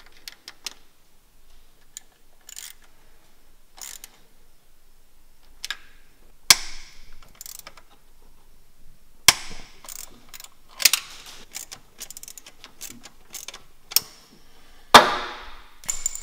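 Irregular metallic clicks and knocks of hands and tools working at an engine's ignition distributor while a 123Ignition distributor is fitted. One louder knock near the end rings on briefly.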